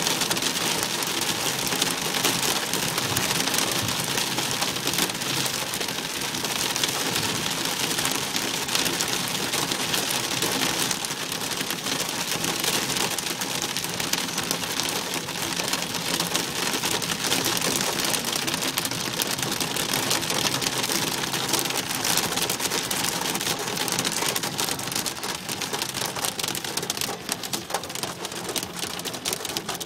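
Heavy rain hitting a car's roof and windshield, heard from inside the car: a steady, dense patter of drops.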